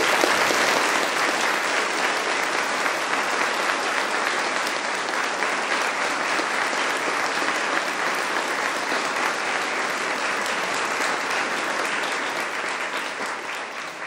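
A large audience applauding steadily. It starts suddenly and fades away near the end.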